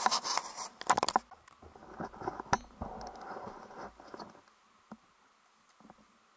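A burst of clattering knocks, then a few seconds of rustling and scuffing in tall grass, tapering to a few faint clicks; no engine is running.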